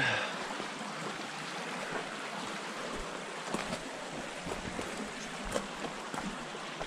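Small mountain creek flowing: a steady rush of running water.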